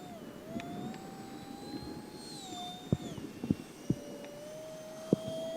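Electric ducted fan of a small RC jet whining steadily in flight, its pitch drifting slightly, then dipping and settling lower about three seconds in. A few sharp taps sound through it.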